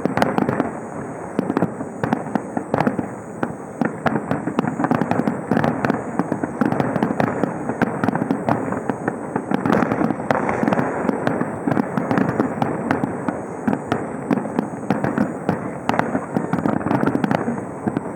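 Fireworks display: a dense, unbroken run of bangs and crackles from shells bursting in quick succession.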